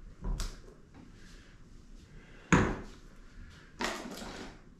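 Handling noise on a wooden table: a light knock just after the start, a sharp knock about halfway through as the drone is set down, then a brief rustle of packaging near the end.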